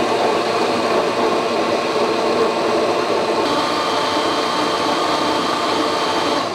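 Blendtec countertop blender motor running steadily, pureeing a jarful of hot soup under a towel, then switched off at the very end so the sound falls away.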